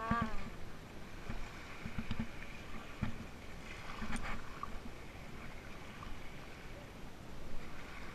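Steady water and wind noise of a boat on the water, with scattered low knocks and a brief pitched cry right at the start.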